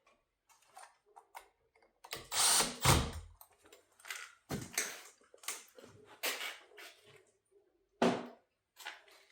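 Screwdriver and wire being worked at the black terminal screw of a three-way switch as the switch leg is fastened: irregular scraping and clicking, the loudest about two seconds in.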